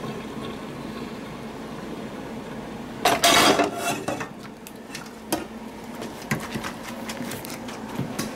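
Kitchen pots and utensils clattering: a dense burst of clatter lasting about a second, about three seconds in, then scattered knocks and clicks over a steady low hum.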